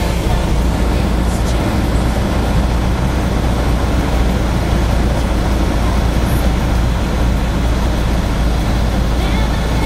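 Light aircraft's engine and propeller running steadily, heard from inside the cabin as a constant low rumble mixed with wind and airframe noise.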